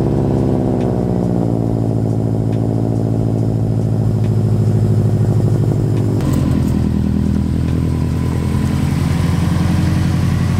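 Subaru WRX's turbocharged flat-four engine, breathing through an aftermarket exhaust, running at a fast idle just after a cold start. The pitch eases down over the first couple of seconds as the start-up flare settles, and the sound changes abruptly about six seconds in.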